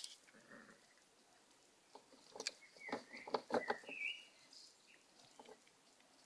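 Chesapeake Bay Retriever puppies scuffling on bare dirt as they tug at a rope. A cluster of scuffs and clicks comes about two to four seconds in, with a few short high squeaks among them.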